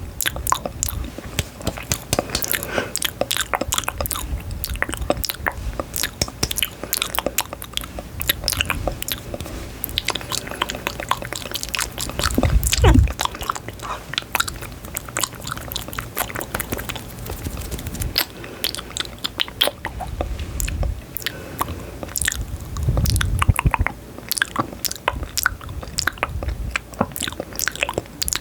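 Close-miked ASMR chewing and biting: a dense run of crisp, sharp clicks and crunches, with two deeper, louder swells about twelve and twenty-three seconds in.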